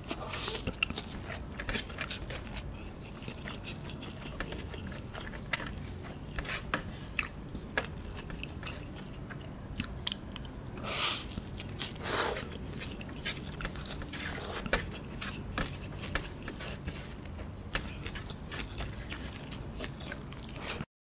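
Close-up wet chewing and biting of a mouthful of instant noodles, with many small mouth clicks. Two louder, longer sounds come about halfway through.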